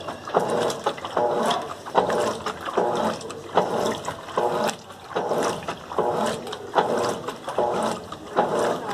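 Colormaq LCA11 top-loading washing machine agitating a load of bed linen and towels. The motor whines in short back-and-forth strokes about twice a second over the slosh of water.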